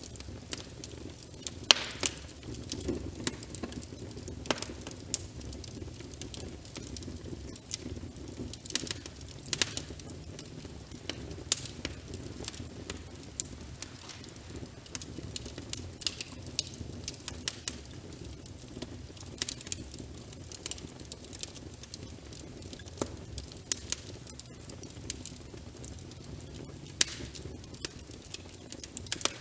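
Wood fire crackling in a fireplace, with frequent irregular sharp pops and snaps, over a steady rush of rain.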